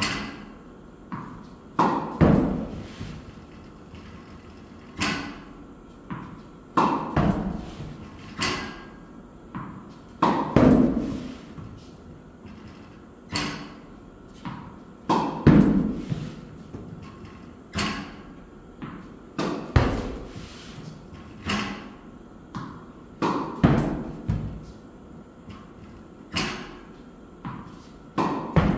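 Tennis racket striking balls in repeated backhand practice: a sharp hit with a ringing echo every one to two seconds, with smaller knocks in between.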